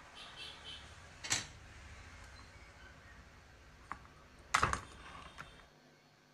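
Clicks and knocks from a circuit board and screwdriver being handled inside an induction cooktop's plastic casing: one sharp knock about a second in, and a louder double knock past the halfway point. A faint low rumble stops shortly before the end.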